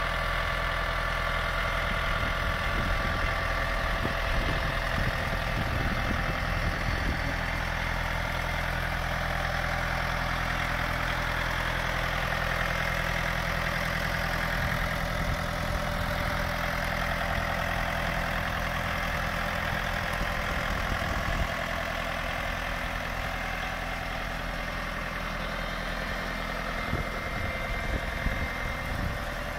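1999 John Deere 4600 tractor's diesel engine idling steadily.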